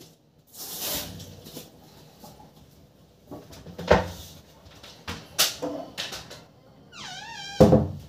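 Scattered knocks and clattering bumps, and a brief wavering high-pitched cry about seven seconds in.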